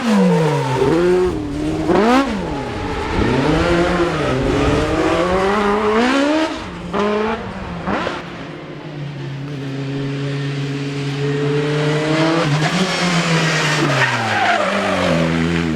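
Rally car engine revving hard, its note rising and falling sharply several times, then holding steadier about halfway through before climbing again and dropping near the end.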